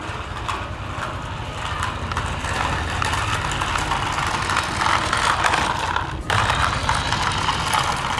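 Small electric motor and plastic gearbox of a toy RC cement mixer truck whirring steadily as it drives over concrete. The whir cuts out briefly about six seconds in and then resumes.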